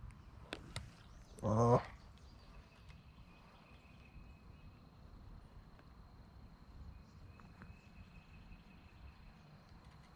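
A single short, low animal call about a second and a half in, with two faint clicks just before it and thin insect buzzing through the rest.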